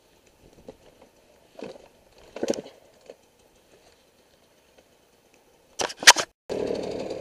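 Dirt bike engine starting up and settling into a steady idle about six and a half seconds in, just after two sharp knocks. Before that, only a few scattered faint clatters.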